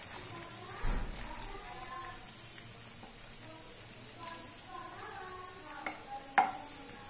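Chopped onions sizzling in hot oil in a karahi. There is a knock about a second in and a sharp tap near the end, from the wooden spoon scraping the onions off a plate.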